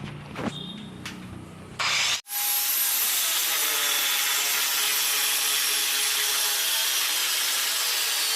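Electric drill boring a hole through a ceramic wall tile: a few knocks, then about two seconds in a loud, steady grinding whine as the bit cuts into the tile.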